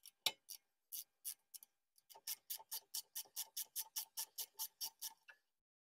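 Ratchet wrench clicking while the 10 mm bolts holding a drum-brake wheel cylinder are undone: a few scattered clicks, then a quick even run of about six clicks a second that stops abruptly near the end.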